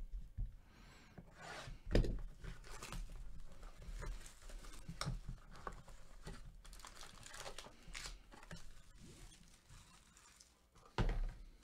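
A cardboard 2019 Topps Tier One hobby box being opened by hand: faint scraping, tearing and sliding of the cardboard, then the crinkle of its foil-wrapped card pack. There is a sharp knock about two seconds in and a louder thud near the end.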